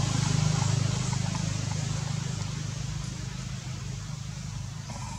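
A motor engine running with a low, steady rumble that slowly fades.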